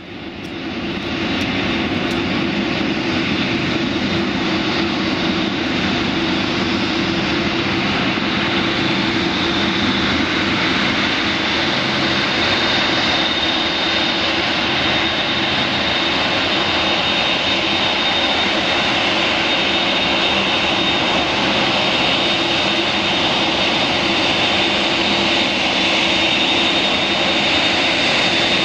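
Boeing 747's four turbofan engines running at taxi power as the jet taxis: a steady rush of jet noise with a high whine held throughout, fading in over the first second.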